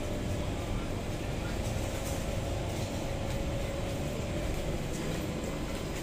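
Steady hum of an SMRT C151 metro train standing at a platform with its doors open: its onboard equipment runs evenly, with a faint steady whine over it.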